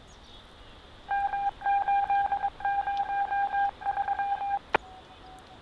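Electronic beeping tone over a police radio scanner: one steady pitch keyed on and off in four quick runs of rapid beeps, ending with a sharp click and a faint broken tone.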